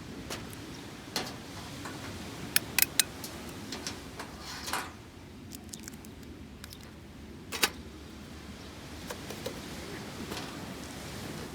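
Wood campfire crackling: scattered sharp pops over a steady low noise, three in quick succession about three seconds in.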